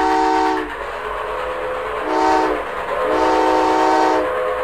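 Train whistle sounding a chord in three blasts: a long one, a short one, then another long one, over a steady rushing noise of a running train.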